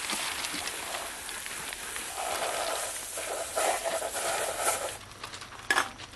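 Plastic bags of whole fish rustling and crinkling as they are handled and packed in a cooler, with scattered small clicks, then a sharp click near the end.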